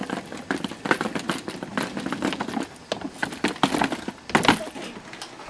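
Footsteps of several people climbing stone steps: many irregular taps and scuffs, with a louder thump about four and a half seconds in.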